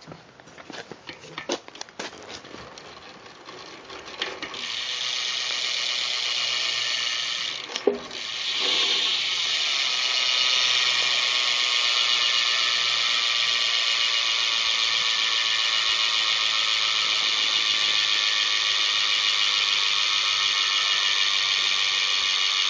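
Cinema rear hub of a BMX bike ratcheting as the wheel spins freely: a fast, even buzz of pawl clicks. A few scattered clicks come first, the buzz starts a few seconds in, there is a brief knock about eight seconds in, then the buzz runs on steadily.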